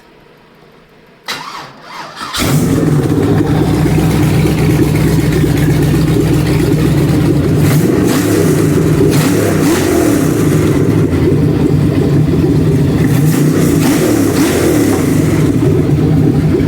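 GM LS 5.3-litre V8 cranking on its starter about a second in, catching about a second later and settling into a loud, steady run. It starts on the original fuse box and wire harness with the ECM's anti-theft deleted.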